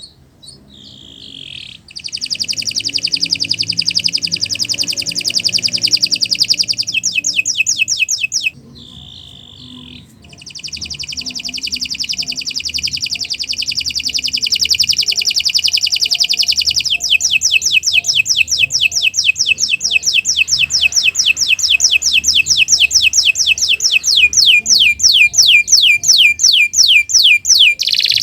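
Domestic canary singing a long, unbroken song of rapid high trills. It pauses briefly about eight seconds in, then finishes with a long run of fast, repeated downward-sweeping notes.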